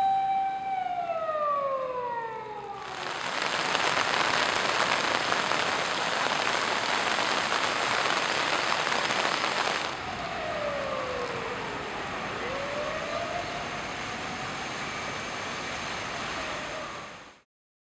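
A fire engine's siren holds its wailing tone, then falls in pitch and fades over the first few seconds. A loud, steady rush of floodwater and rain fills the next seven seconds or so. After that a siren sounds again over quieter water noise, falling and then rising in pitch, before the sound cuts off near the end.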